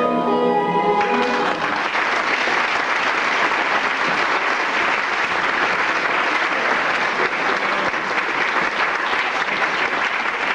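Ballroom dance music ending about a second in, followed by a crowd's steady applause that begins to fade near the end.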